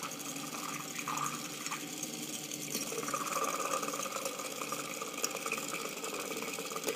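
Small Lego electric motor whirring steadily as it drives a gear train and a big toothed sprocket, spinning water into a whirlpool, with the water churning.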